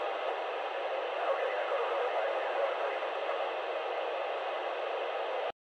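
FM radio static hissing steadily from a dual-band mobile transceiver's speaker, its squelch open on 437.800 MHz, the ISS repeater downlink, with no voice coming through. The hiss cuts off suddenly about five and a half seconds in.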